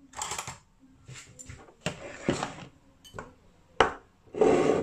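Bowls and utensils being handled on a kitchen counter: a few scattered clicks and knocks, with a louder scraping rustle near the end.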